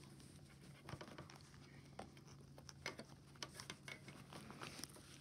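Faint scattered clicks, taps and rustles of soldering kit pieces being handled and fitted back into their case, over a low steady hum.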